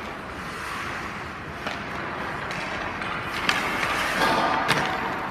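Hockey skate blades scraping and carving on rink ice, growing louder past the middle as a goalie skates close by, with a couple of sharp clicks near the end.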